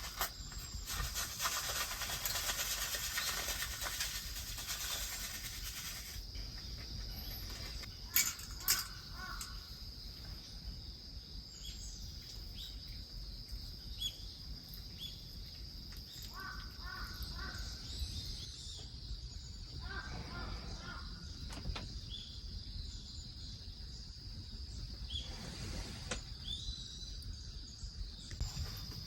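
Crows cawing in two short bouts, about two-thirds of the way through, over a steady high-pitched insect trill of autumn crickets. A few sharp clicks come about a quarter of the way in.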